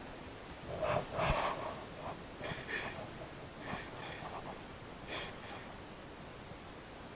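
A person breathing hard, with several heavy breaths coming at uneven intervals over a low background hiss.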